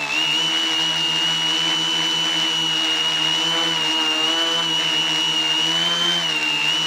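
Quadcopter's electric motors and propellers running in flight, heard up close from its onboard camera. A steady high whine sits over a lower hum, with the pitch dipping slightly near the start and again near the end.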